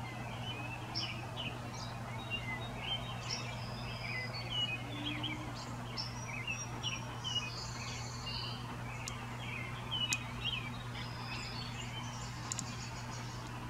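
Several birds chirping with many short, quick calls, over a steady low hum and background noise. Two sharp clicks come a little past the middle.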